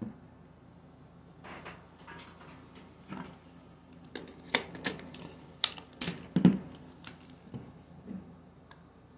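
Irregular sharp clicks, taps and light scrapes of a Nikon D4 DSLR body and a lens being handled and fitted together, busiest and loudest about halfway through.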